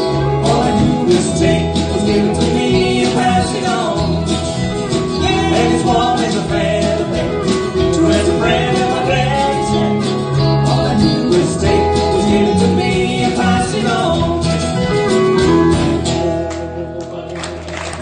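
Country band playing, led by guitar, without recognisable lyrics; the music dies away in the last couple of seconds as the song ends.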